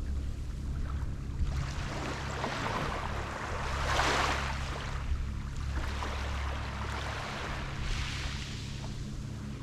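Small sea waves washing onto a beach, the surf swelling and fading, loudest about four seconds in and again near the end, over a low steady hum.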